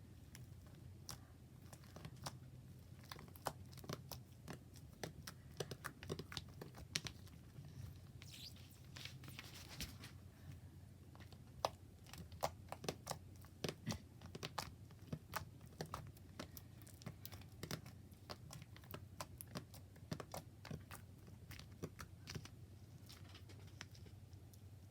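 Clear borax-free slime being squeezed and pressed by hand, giving many irregular sticky clicks and pops.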